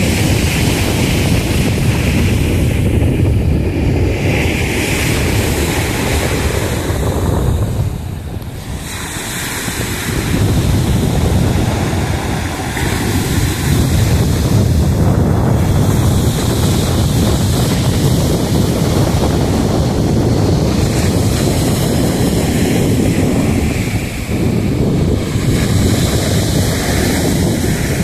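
Black Sea surf breaking and washing up a sandy beach, with wind buffeting the microphone. There is a brief lull about eight seconds in.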